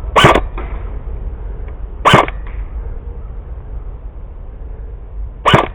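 Three sharp airsoft gun shots, single pops roughly two and three seconds apart, over a steady low rumble.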